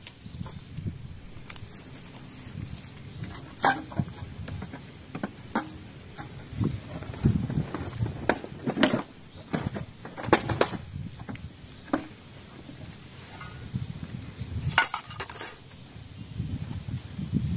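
Rustling, scattered knocks and clinks of camping gear being handled, and feet moving over dry leaves and twigs. A short high chirp repeats every second or two.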